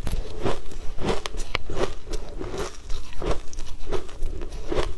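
Frozen shaved ice being bitten and chewed, a string of sharp, irregular crunches about twice a second.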